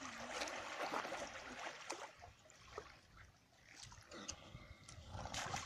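Water splashing and sloshing: a steady rushing noise broken by a few sharp splashes, quieter in the middle.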